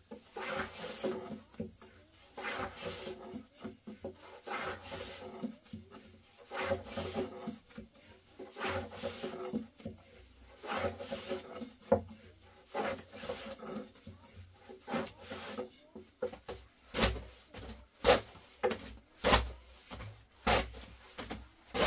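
Repeated rubbing or scraping strokes, roughly one a second, turning near the end into a run of sharper knocks, each with a dull thud.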